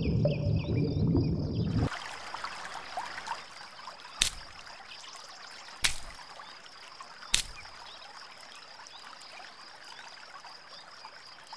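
Muffled underwater rush of water for the first couple of seconds, then a quieter trickling-stream ambience with a steady high-pitched whine and three sharp clicks about a second and a half apart.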